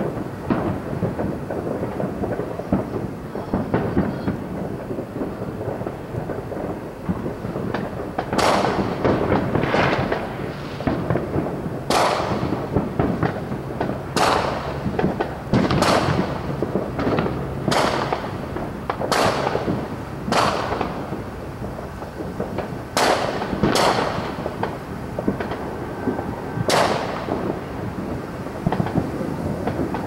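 Distant fireworks: about a dozen sharp bangs starting about eight seconds in, each trailing off in an echo, over a continuous low rumble.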